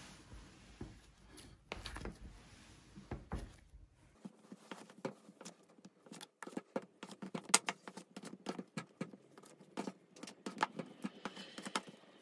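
Black plastic kitchen knife chopping soft pandesal dough into small pieces, its blade knocking on the tabletop in quick, irregular taps. The first few seconds are faint; the tapping picks up about four seconds in.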